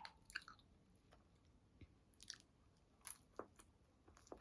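Faint chewing and biting: small scattered clicks and crunches of someone eating a slice of meat pizza.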